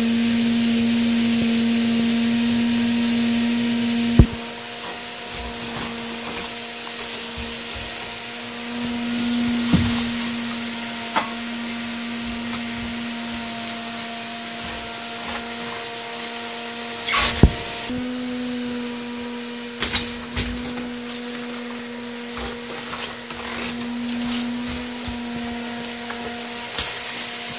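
A steady motor hum with a high whine, its pitch stepping slightly about two-thirds of the way through, with a few sharp knocks on top.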